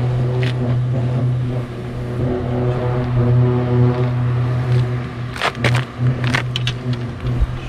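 A boat engine idling with a steady low hum. A few sharp clicks and knocks come about five and a half to six and a half seconds in.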